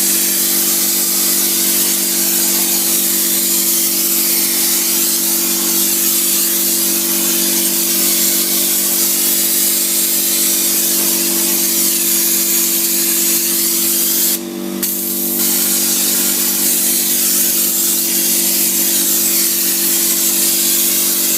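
Spray-applied insulation being sprayed: a loud, steady hiss from the spray over a constant machine hum, cut off for about a second roughly two-thirds of the way through, then resuming.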